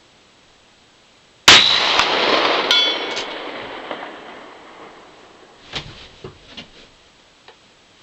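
A single shot from a Smith & Wesson 686 .357 Magnum revolver about a second and a half in, its report echoing away over a few seconds. About a second after the shot comes a brief metallic ring, typical of a steel gong being struck downrange. A few light clicks follow near the end.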